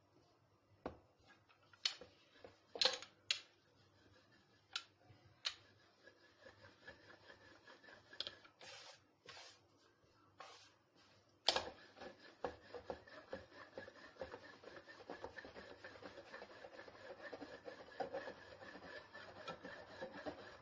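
Wooden rolling pin rolling out flat-bread dough on a floured wooden board. A few separate knocks and taps come first; about halfway through, a continuous rubbing and rattling of the pin over the board begins.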